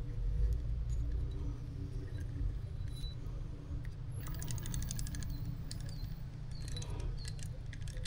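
Light, rapid metallic clicking and rattling as an AN fitting is screwed onto a braided fuel hose held in a hand tool, in a run about four seconds in and another near the end, over a steady low hum.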